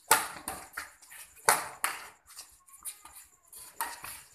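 Badminton rackets hitting a shuttlecock in a fast doubles rally: a string of sharp hits, loudest right at the start and twice more about a second and a half in.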